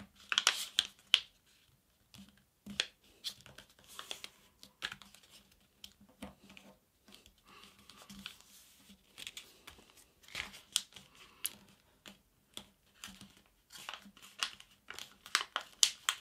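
A paper airplane folded from letter-size paper being creased by hand: intermittent paper rustling and crinkling, with short sharp swipes as fingers press the folds flat.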